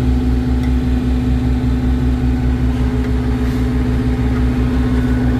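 Diesel engine of an asphalt paver running steadily at a constant speed, heard up close from the operator's station, with an even low throb under a steady hum.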